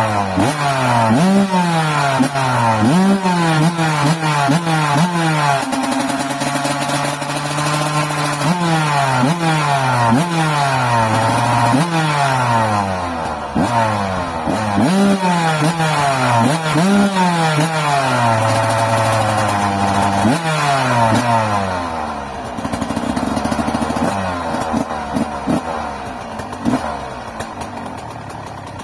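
2001 Yamaha YZ125 two-stroke single-cylinder dirt bike engine being blipped again and again, the revs shooting up and falling back each time, with a short steady hold partway through. Near the end it settles into a lower, uneven idle with a few pops.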